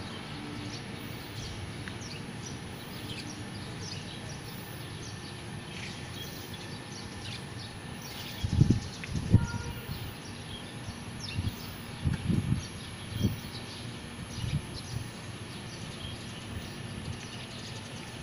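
Outdoor ambience with faint, scattered bird chirps over a steady background hiss. Several brief low rumbles, like wind buffeting the microphone, come in bunches about halfway through and again a few seconds later.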